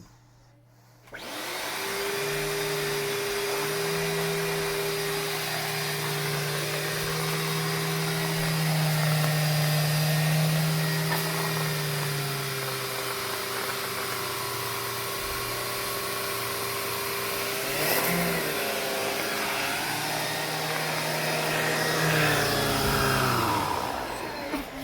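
Numatic George GVE 370-2 wet-and-dry vacuum cleaner starting about a second in and running steadily while its turbo brush vacuums carpet. The low tone shifts in pitch partway through, a brief knock comes near the middle, and the motor runs down shortly before the end.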